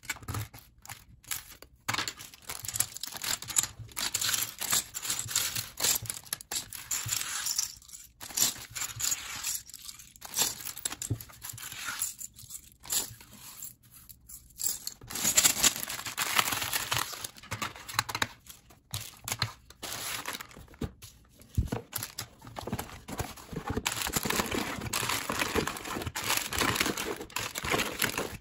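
Loose LEGO plastic pieces clicking and rattling against each other and the tabletop as they are gathered, mixed with the crinkling of a clear plastic parts bag being handled. Near the end a cardboard box is handled as well.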